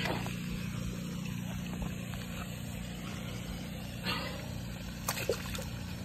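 A released bass dropping into pond water, a short splash about four seconds in, over a steady low hum.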